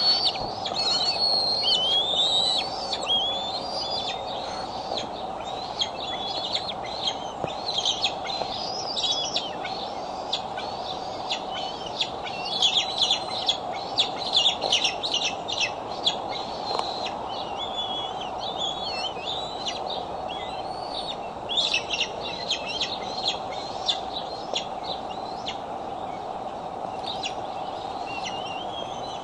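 Bald eagle eaglets' high, thin peeping and chittering calls, repeated all through, with bursts of rapid chatter near the start and about twelve to fifteen seconds in: food-begging at the nest. A steady hum lies underneath.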